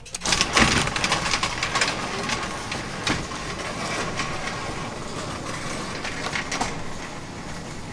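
Commercial C.H.I. sectional overhead door opening under its electric operator after the OPEN button is pressed. It rises with a steady mechanical run and continuous irregular rattling and clatter.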